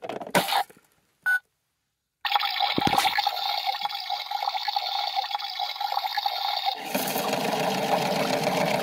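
Toy washing machine: a few button clicks and a short electronic beep, then, after a brief silence, a steady water-filling sound that turns fuller and lower about seven seconds in.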